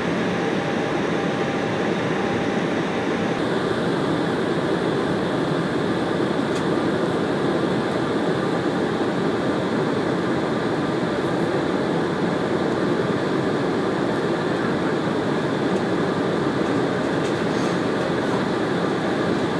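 Steady cabin noise of an Embraer E190 airliner in cruise: the even rush of airflow and its turbofan engines heard inside the cabin. About three seconds in, the hiss becomes slightly brighter.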